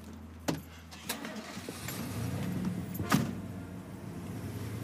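Van door latch clicking open, then the door slammed shut with a heavy thunk about three seconds in, with a low vehicle rumble building underneath.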